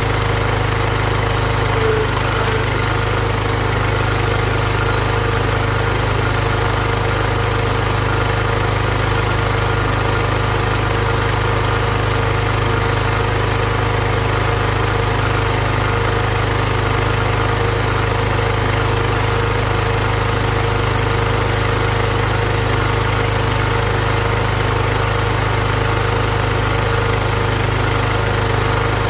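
The 18 hp Kohler engine of an Ariens Zoom 1840 zero-turn mower running steadily.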